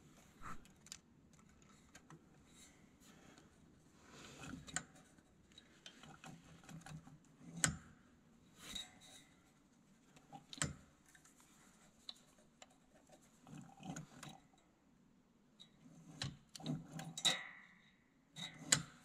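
Small metal parts clicking and clinking as a drilled metal block is fitted onto the carburetor's throttle and choke linkage rod. The clicks come at irregular intervals, with a few sharper ticks.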